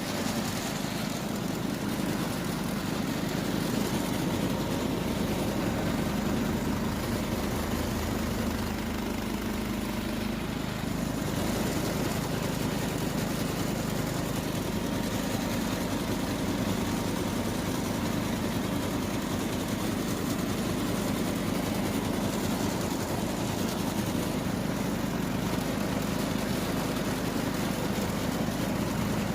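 Case Ingersoll garden tractor engine running steadily, its pitch shifting slightly about eleven seconds in.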